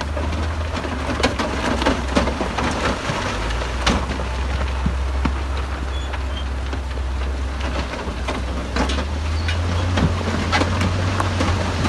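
Heavy diesel earthmoving machine running with a low drone. Its pitch drops a few seconds in and rises again near the end, with frequent clanks and knocks of metal and rock throughout.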